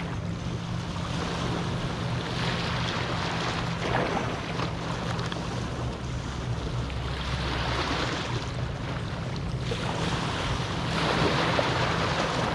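Small ocean waves washing onto a beach, swelling and easing about three times, over a steady low rumble.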